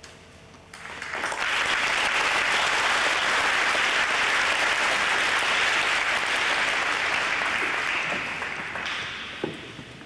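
Audience of seated martial arts students applauding in a large hall: the clapping builds about a second in, holds steady, then dies away near the end.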